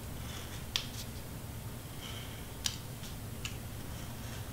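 Craft knife blade cutting slits into glitter cardstock: a few faint, sharp clicks and a soft scratch as the blade pierces and drags through the paper.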